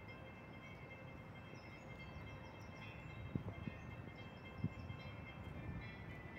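Low, steady rumble of wind buffeting a handheld microphone outdoors, with a few soft knocks about three and a half and four and a half seconds in.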